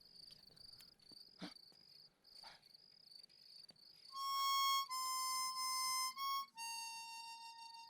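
Crickets chirping in a steady high trill. About four seconds in, they are joined by a few long held notes on a harmonica-like reed instrument, the first notes of a film song, with the last note a little lower and fading.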